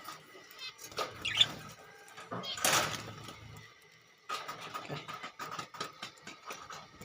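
Clicks and rustles of bird food being put into a budgie cage, with budgies chirping; one louder rattle just under three seconds in.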